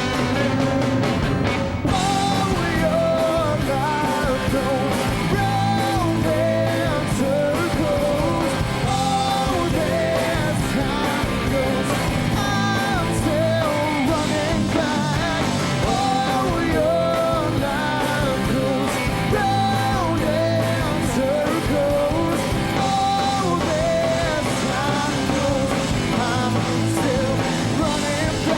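Live rock band playing with electric guitars, bass and drums in an instrumental stretch of a pop-rock song, with a lead line winding over the steady band sound.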